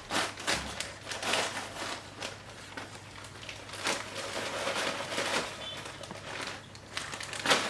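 Plastic zip-lock bag crinkling and rustling as crushed Oreo crumbs are scraped out of it with a spoon, in irregular short crackles.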